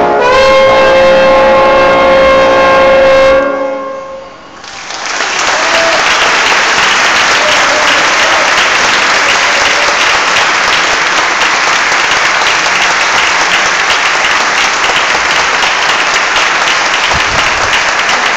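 A brass ensemble with trombone holds a final chord that cuts off about three and a half seconds in. After a brief lull, an audience breaks into steady applause that carries on through the rest.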